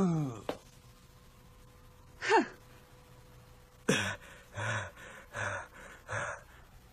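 Dubbed anime voice acting: a man's pained cry that falls in pitch, a short gasp, then four heavy, ragged pants about two-thirds of a second apart.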